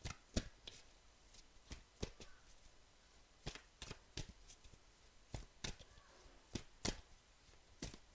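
Tarot cards being shuffled by hand: scattered sharp flicks and taps at an uneven pace, a few a second.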